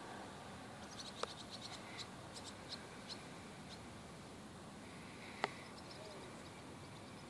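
Faint steady outdoor hiss with a run of quick, high chirps or ticks lasting a few seconds, and two sharp clicks, one about a second in and one near the end.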